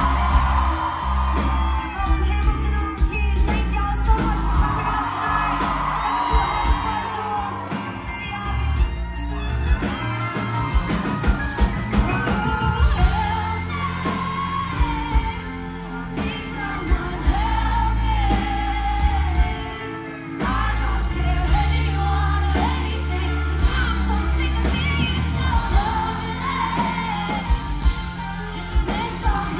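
Live pop song performed on stage: a woman sings the melody over the band's heavy bass and drums.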